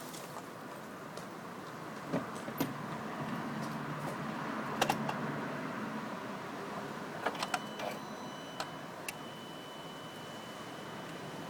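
Scattered sharp clicks and knocks of handling over a faint steady hiss, with a thin steady high tone coming in about seven seconds in.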